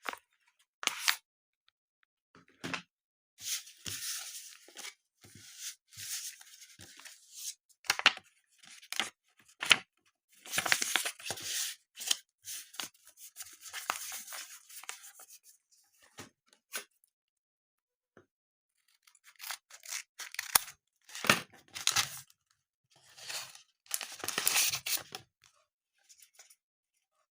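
Blind-bag packaging being torn open and crinkled in three spells of rustling, with sharp clicks and taps between them.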